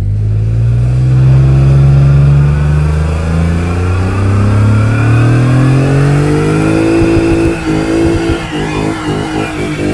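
Performance car engine under hard acceleration, its pitch climbing steadily for about seven seconds, then turning rough and uneven in the last couple of seconds.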